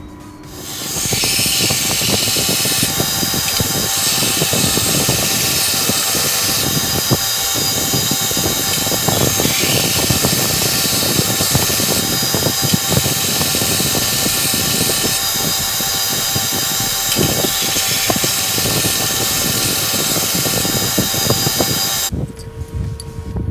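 Belt grinder running with a Damascus sanmai VG10 steel razor blank pressed against the abrasive belt: a loud, steady grinding hiss over the motor's hum. It starts about a second in and cuts off suddenly near the end.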